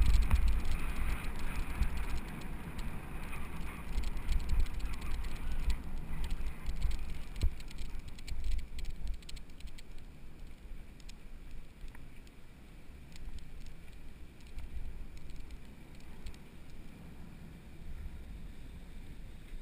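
Mountain bike rolling over a dirt trail, heard from an action camera: a low rumble of wind and tyres, with many small rattling clicks from the bike on rough ground. It is louder over the first several seconds, then settles quieter.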